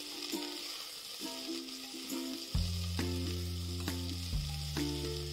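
Sliced shallots and chopped vegetables sizzling in hot oil in a pot, with the clicks and scrapes of a spatula stirring them. Background music of plucked notes plays over it, and a deeper bass line comes in about halfway through.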